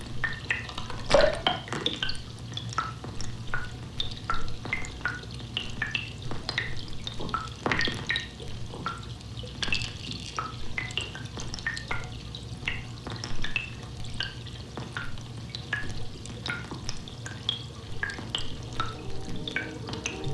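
Meltwater dripping and plinking in a glacier's melting ice: a dense run of quick, pitched drops and clicks over a steady low hum, with two louder cracks, one about a second in and one about eight seconds in.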